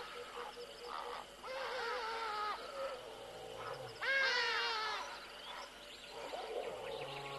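Wild animal calls, repeated three or four times, each about a second long and falling in pitch, with a short low hum twice between them.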